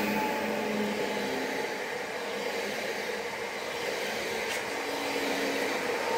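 Electric multiple unit (a 48WE) running past at a platform: a steady rumble of wheels on rail with a hum from its traction equipment, easing off as the last car goes by.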